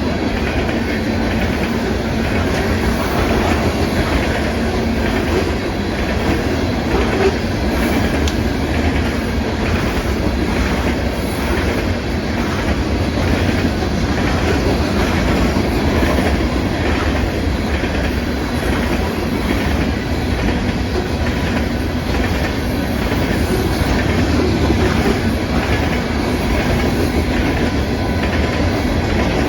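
Freight cars of a coal train rolling past at speed: a steady, loud rumble of steel wheels on rail with clickety-clack over the rail joints.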